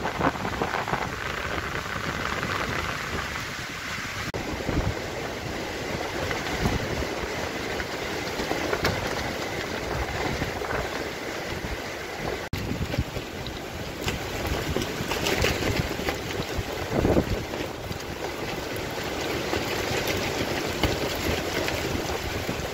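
Strong gusting wind of about 40 mph rushing through the trees and buffeting the microphone, with a tarp flapping and snapping in the gusts.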